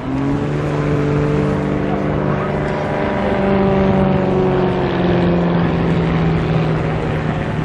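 Extra 300L aerobatic plane's piston engine and three-blade propeller droning with a pitched note. The note rises sharply at the start, then holds with slow shifts in pitch as the plane flies its display manoeuvre.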